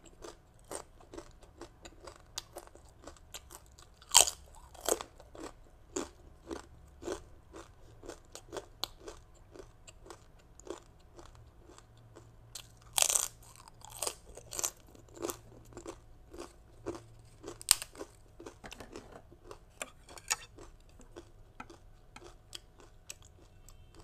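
Close-up crunching and chewing of a crisp toasted rice cracker (bánh đa) eaten with green mango salad: short crunches about twice a second, with a few sharper, louder bites among them. The crunching softens near the end.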